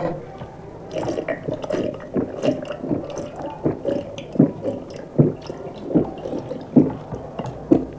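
Repeated gulps of water drunk from a steel pot, with wet squishing of rice being mixed by hand.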